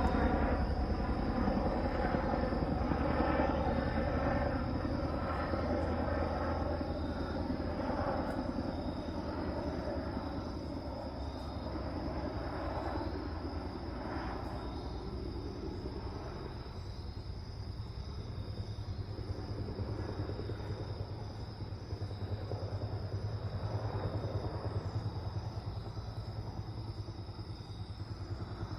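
Boeing CH-47 Chinook tandem-rotor helicopter flying past high overhead, its rotors beating in a low, rapid thump that slowly fades as it moves away.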